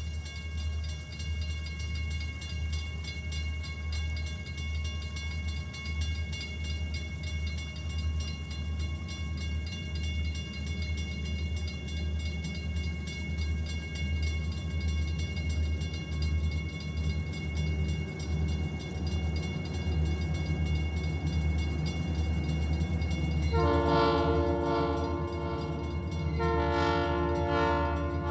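Steady low rumble of a vehicle driving along a road. Near the end, loud sustained horn-like chords come in, break off briefly and start again.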